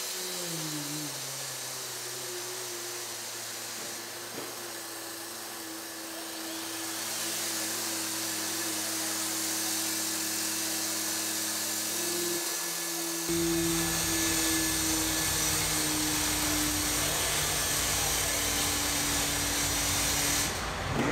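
Boston Dynamics Handle wheeled warehouse robot's actuators whining steadily over a hiss as it drives and handles boxes. The whine slides down in pitch near the start. About 13 seconds in a low rumble joins it.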